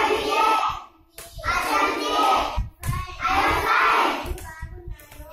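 A class of children reciting aloud together in chorus, phrase by phrase, each phrase about a second long with short pauses between, as words on the blackboard are pointed out.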